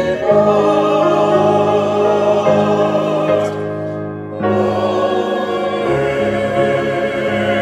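Choir singing slow sacred music in long held notes, with a brief pause between phrases about four seconds in.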